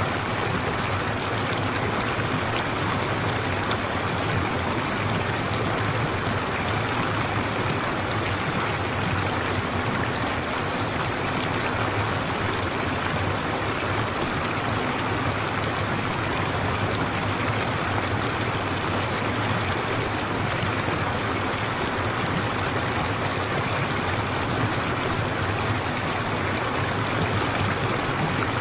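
Steady sound of running stream water, even and unchanging, used as the masking layer of a subliminal audio track.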